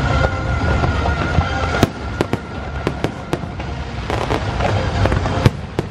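Aerial fireworks going off: about a dozen sharp bangs and crackles in quick succession, starting about two seconds in, the loudest just before the end. Show music fades out underneath during the first second or two.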